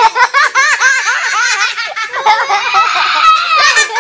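Children laughing hard: a rapid run of high-pitched "ha" sounds that keeps going.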